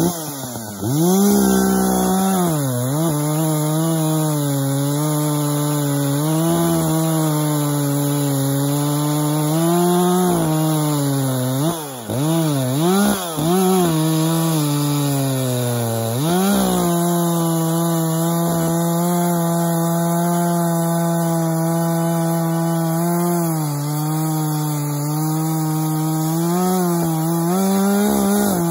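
Echo CS-590 two-stroke chainsaw cutting into a large log, running at high revs under load. The engine pitch dips and rises several times, most of all in the middle, as the bar is worked in the cut, then holds steadier towards the end.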